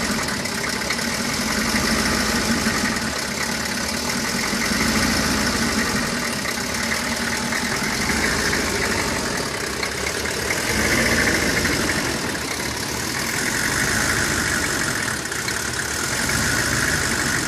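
1995 Chevy 3500 pickup engine idling roughly, its level swelling and dipping about every three seconds.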